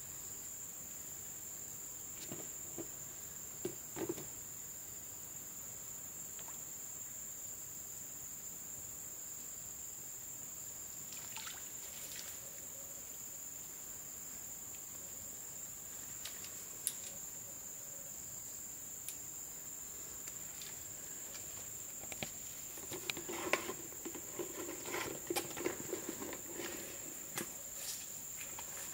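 Insects shrilling in one steady high-pitched drone. A few scattered clicks, then a cluster of clicks and knocks in the last few seconds from handling at the water's edge.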